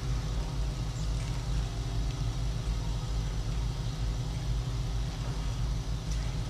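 Motorised arthroscopic shaver running steadily while debriding torn rotator cuff tissue, a low even hum with a few steady tones over it.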